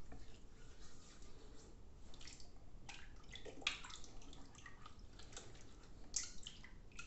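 Water splashing and dripping as the face is wetted with handfuls of water, with several sharper splashes, the loudest about halfway through and near the end.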